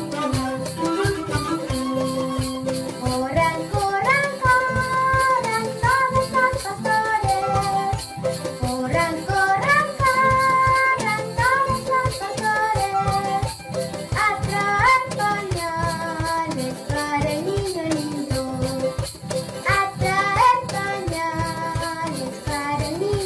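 Andean folk ensemble playing a villancico in huayno rhythm: a melody line that slides between notes over a steady, evenly pulsed beat.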